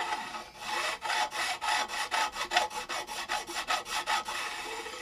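A metal file rasping along the edge of a guitar fingerboard, dressing the fret ends, in quick regular scrapes about four a second. The ends are nearly filed down, so the file barely touches metal.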